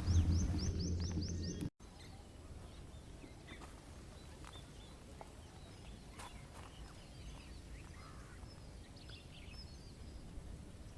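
Faint birdsong: scattered chirps and short calls over a quiet outdoor background. In the first couple of seconds a louder sound with a low hum and a quick run of chirps fades, then cuts off abruptly.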